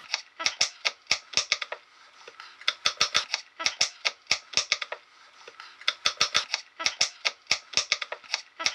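Kitchen knife chopping on a cutting board: quick, even strokes at about five a second, in short runs with brief pauses between them.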